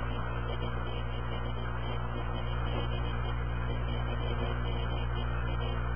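A steady low hum under an even hiss, unchanging throughout.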